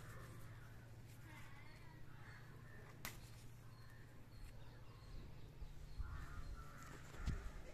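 Faint outdoor background with a low hum and a few distant bird calls, about a second and a half in and again near the end, and a single sharp click about three seconds in.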